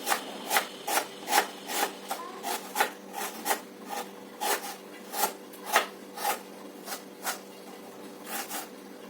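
Knife chopping vegetables finely on a cutting board, a slightly irregular series of sharp strokes about two a second.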